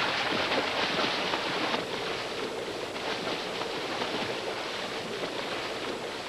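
Water splashing and churning as hatchery rainbow trout thrash at the surface while being fed: a dense crackle of many small splashes, a little louder for the first couple of seconds.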